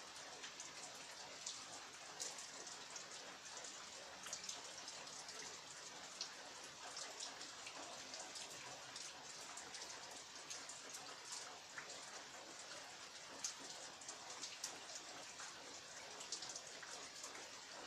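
Steady rain with many individual drops pattering and ticking on surfaces.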